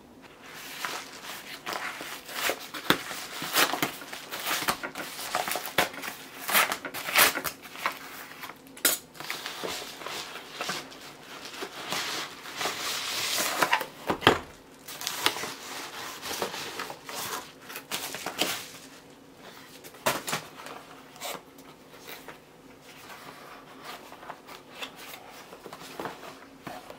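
Crinkling and rustling of a white plastic padded mailer as it is opened and two boxes are taken out of it, with a dense stretch of noise about halfway through. Then quieter taps and scrapes of cardboard boxes being handled and set on a table.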